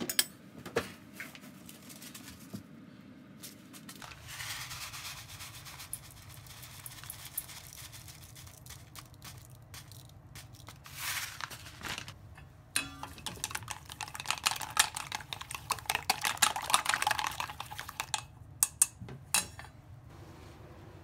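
Wooden chopsticks beating eggs in a stainless steel bowl, with quick runs of clicks against the metal. Around the middle, a foil seasoning packet crinkles as it is tipped over the bowl.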